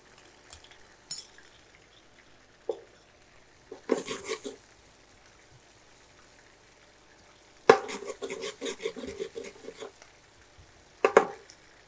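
A spatula stirring chopped onion and garlic in a nonstick frying pan, knocking and scraping against the pan in short bursts: a few seconds in, for about two seconds past the middle, and once more near the end.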